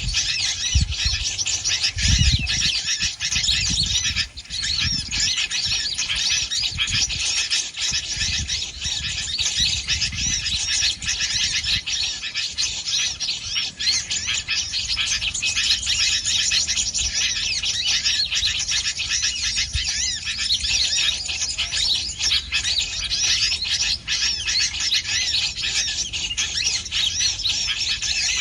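Many small birds chirping and twittering without a break, a dense high-pitched chatter, with a few low thumps in the first ten seconds.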